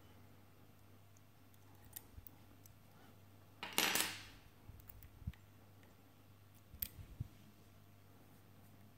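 Small metal lock-picking tools at an Avocet ABS euro cylinder lock: a few faint clicks, with one brief metallic clatter that fades out at about four seconds.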